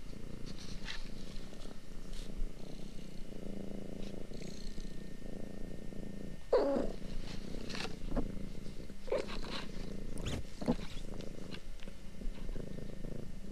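Domestic cat purring steadily, with scattered soft clicks and a brief louder sound about six and a half seconds in.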